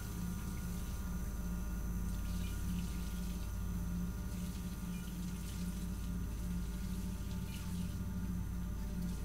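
Bathroom sink faucet running, water falling into the basin and dripping off cupped hands, over a low throbbing hum.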